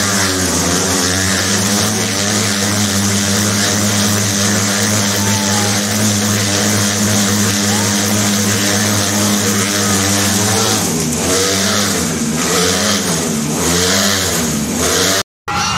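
Several motorcycle engines running together inside a steel-mesh globe-of-death cage, a loud steady drone. About eleven seconds in, the pitch starts rising and falling in waves about once a second as the bikes circle the sphere, and the sound drops out for a moment near the end.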